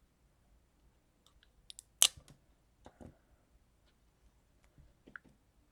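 Small clicks and light rustles of hands handling craft paper and self-adhesive eyes, with one sharp click about two seconds in.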